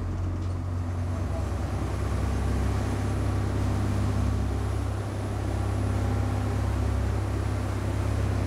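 Sportfishing boat's engines running steadily at cruising speed, a deep even drone, with a rushing haze of water and wind over it.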